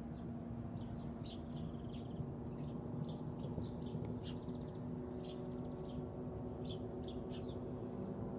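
Small birds chirping, short quick calls repeated over and over, over a steady low hum.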